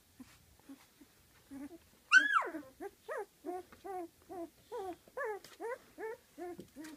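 Golden retriever puppies whining and whimpering: a loud high yelp that falls in pitch about two seconds in, then a run of short whimpers, about three a second.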